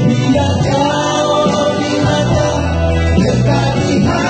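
Several men singing a song together through microphones, backed by an electronic keyboard playing sustained bass notes and chords.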